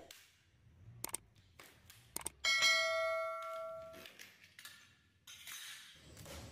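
A few sharp clicks, then a single bell ding that rings for about a second and a half: a subscribe-button sound effect. A short scratchy hiss follows near the end.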